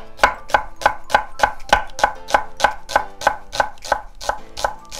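Chef's knife thinly slicing an onion on a wooden cutting board: an even run of chops, about three a second.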